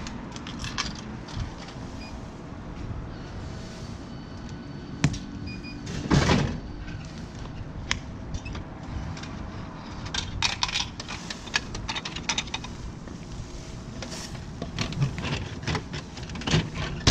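Coins clinking into a drink vending machine's coin slot, then the machine dispensing a can: a run of clicks, clatters and thuds as the can drops into the pickup bay, and the bay's flap knocking as it is pushed open.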